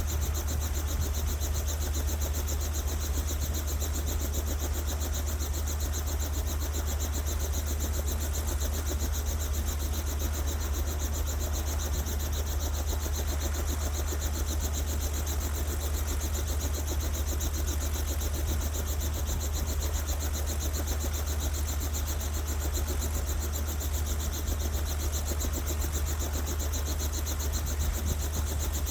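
Steady low engine drone with an even hiss above it, unchanging in pitch and level.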